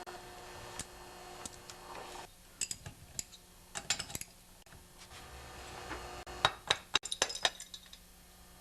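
Scattered metal clinks and taps of tools and steel bolts being handled while the cylinder head is unbolted from a small Tecumseh engine, with a quick cluster of clinks near the end.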